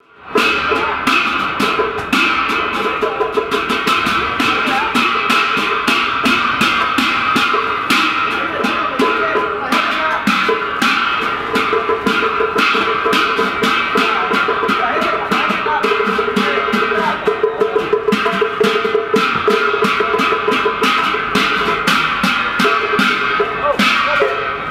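Chinese festival gong-and-drum percussion: drums, gongs and cymbals struck in a fast, unbroken beat with a lasting metallic ring.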